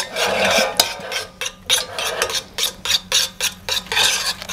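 A metal spoon stirring and scraping a potato-starch bioplastic mixture in a small steel pot, in quick strokes about four times a second. The heated mixture is starting to thicken and clump on the pot's bottom.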